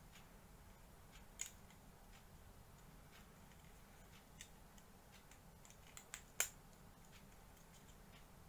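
Quiet room with a few sharp, small clicks of plastic model-kit parts being handled: one about a second and a half in, then three close together around six seconds in, the last the loudest.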